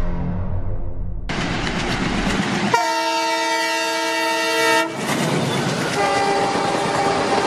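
Train running, with its horn sounding for about two seconds in the middle and a fainter horn blast again near the end.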